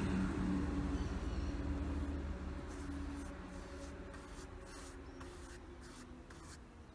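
Paintbrush bristles scratching across rough, charred pine board as stain is brushed on, in several short strokes over the second half. Under them a low steady hum that fades away.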